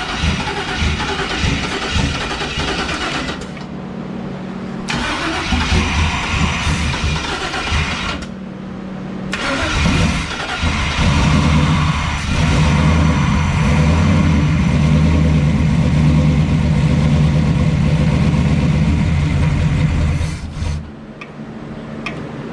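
Turbocharged 5.3 V8 being started and run after a rod-knock repair: uneven running for the first several seconds, then a louder, steady run from about ten seconds in until it drops off near the end.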